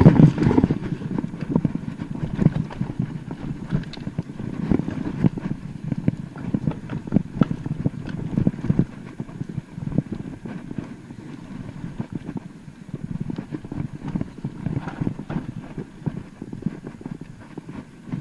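Mountain bike descending a rough trail: a fast, irregular clatter of knocks and rattles as the tyres and bike hit bumps, loudest in the first second.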